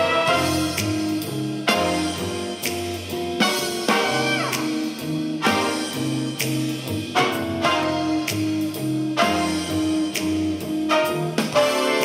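Instrumental music with drum hits, a bass line and a melody instrument, played through the Wisetiger Q06P mini Bluetooth speaker in a sound test. A note slides down about four seconds in.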